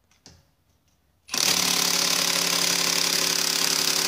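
Cordless impact wrench hammering steadily on a seized wheel lug bolt, starting abruptly about a second in and running without a pause. The bolt does not break loose.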